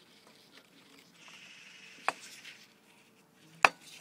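Small metal clicks and light rubbing as the brake pads and pad pin are worked loose in a motorcycle brake caliper: a soft scraping in the middle, a small click about two seconds in and a sharper click near the end.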